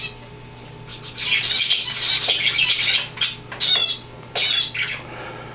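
A small bird chirps and squawks in rapid chattering runs from about a second in until nearly five seconds, over a steady low hum.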